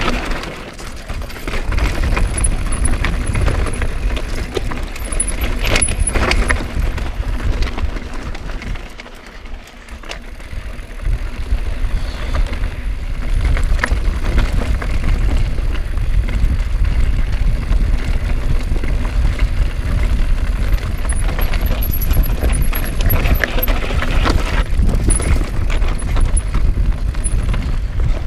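Mountain bike rattling and jolting down a rocky gravel trail, tyres crunching over loose stones, with wind buffeting the camera microphone. It eases off briefly about a third of the way through, then picks up again.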